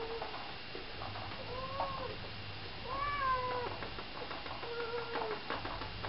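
A cat meowing four times, each a drawn-out call that rises and falls in pitch, the third the longest and loudest. A few faint clicks near the end.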